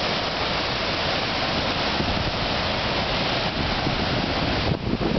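Steady rushing noise of heavy storm surf breaking on the shore, mixed with wind. Near the end it turns choppy, with gusts of wind buffeting the microphone.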